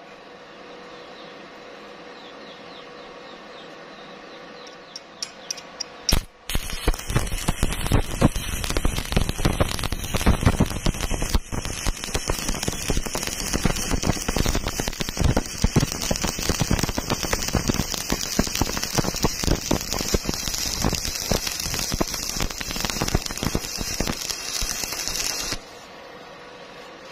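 Stick (shielded metal arc) welding on thin steel pipe: after a steady hum, a few sharp clicks as the electrode is struck, then the arc catches and crackles and spits steadily for about twenty seconds while the bead is run around the joint, stopping abruptly near the end when the arc is broken.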